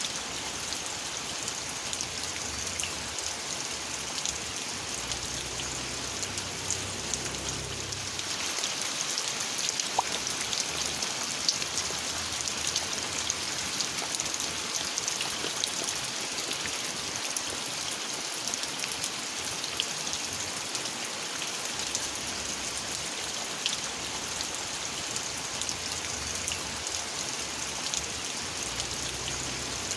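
Steady rain falling, a dense hiss of water with many small individual drop hits, growing a little heavier about a third of the way in and easing back after about two thirds.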